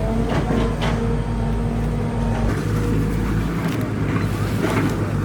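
An engine running steadily at a constant pitch, with a few short knocks or clanks over it.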